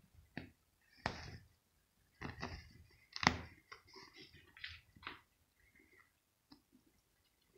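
A cat rustling and scratching in a plush fabric cat bed, its claws and body rubbing the fabric in irregular short scrapes, the loudest a little over three seconds in.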